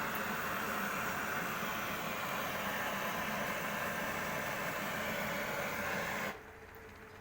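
Steady hissing rush of pressurised gas that cuts off suddenly about six seconds in.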